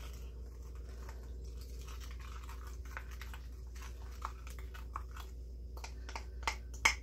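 A spoon scraping and clicking against a bowl as a thick, creamy dressing is stirred and spooned out, with a few sharper clicks near the end, over a steady low hum.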